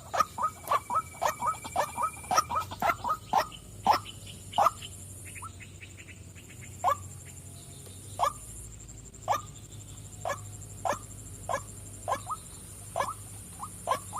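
Female white-breasted waterhen calling: a string of short, downward-sliding notes, quick at first at about three a second, then slowing after about four seconds to roughly one note a second.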